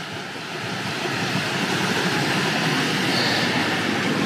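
Creek water rushing over rocky rapids: a steady rush that grows louder about a second in, then holds.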